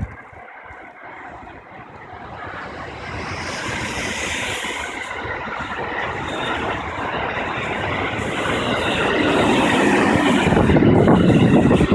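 JR West electric trains passing at the crossing. A 225-0 series special rapid runs by, its wheel and track noise building from about two seconds in. Then a 281 series Haruka limited express passes, louder, from about three-quarters of the way through.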